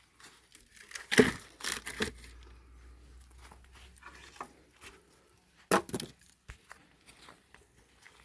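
Pieces of dry firewood knocking and clattering as they are dropped onto a bonfire stack, with the loudest wooden thump about a second in, more knocks just before two seconds and another near six seconds.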